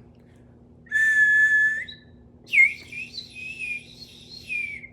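3D-printed plastic water bird whistle blown twice: first a short, steady whistle, then a longer one whose pitch wavers only slightly instead of a full warble. The owner suspects there is not enough water in it.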